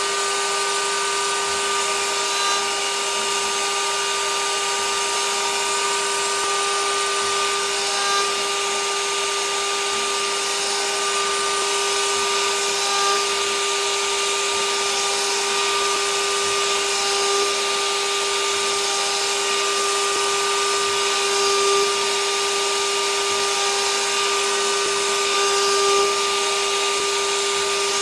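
High-speed spindle of a DIY fixed-gantry CNC router running with a steady whine as a 3/8-inch carbide end mill takes light clean-up passes along a metal block. There is a slight swell in loudness every four or five seconds.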